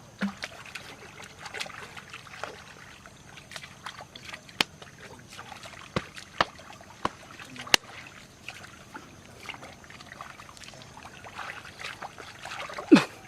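Water splashing and trickling, with scattered sharp clicks and knocks, and one short, loud sound sweeping downward in pitch near the end.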